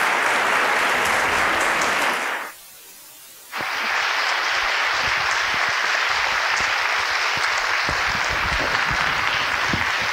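Audience applauding, a dense steady clapping. About two and a half seconds in, the sound drops out abruptly for about a second, then the applause picks up again and carries on.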